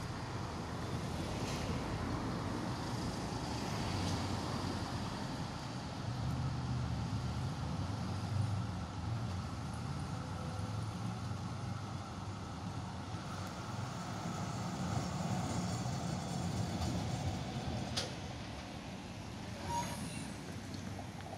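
Melbourne A-class tram approaching along the street track and pulling in to a stop, a steady low rumble of its wheels and motors on the rails. Near the end there is a sharp click, then a brief squeal.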